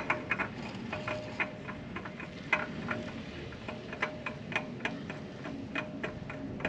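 Irregular light clicks and ticks as a new spin-on oil filter is threaded on by hand, with a sharper click right at the start.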